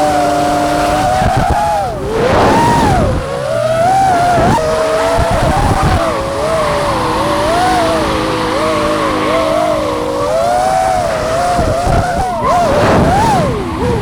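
Tyres of a drifting car squealing in long, wavering squeals that rise and fall in pitch, with brief breaks as the car changes direction.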